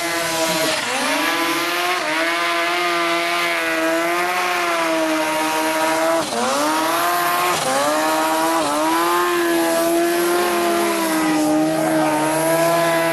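Snowmobile engine running at high revs as the sled climbs a steep snow chute. The pitch dips and comes back up a few times as the throttle is eased and reopened.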